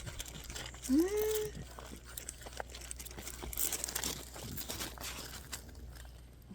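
Crinkling and rustling of something being handled close by, in scattered short bursts that are busiest around the middle. About a second in there is one short rising voiced sound.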